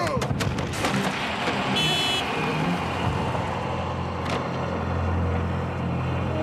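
A few sharp knocks at the start, then a pickup truck's engine running as it pulls away, with a brief high squeal about two seconds in and a low steady drone building toward the end.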